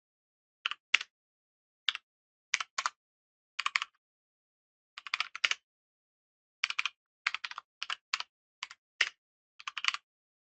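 Computer keyboard typing: short clusters of keystrokes at an irregular pace, with gaps of up to about a second and a half between them, as code is entered.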